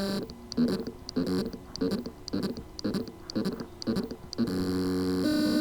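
Hard drive whose spindle motor has loose contacts on the circuit board, so the motor spins but cannot reach full speed. It gives a steady electrical buzz, then a run of short chirps about every 0.6 s, then another longer buzz near the end.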